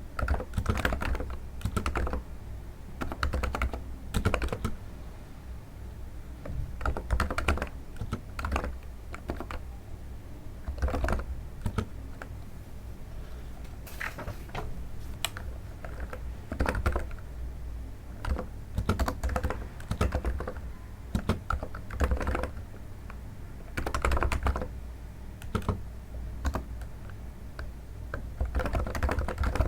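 Typing on a NiZ electro-capacitive keyboard, a sound likened to stepping on snow. The keystrokes come in quick bursts separated by short pauses.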